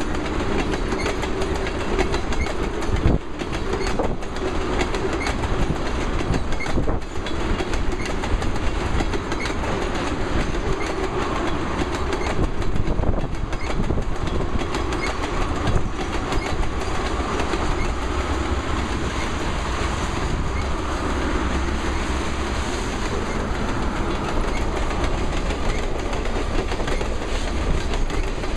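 Freight cars of a passing train rolling over jointed rail: a steady rumble with the clickety-clack of wheels striking the rail joints. Tank cars pass first, then hopper cars near the end.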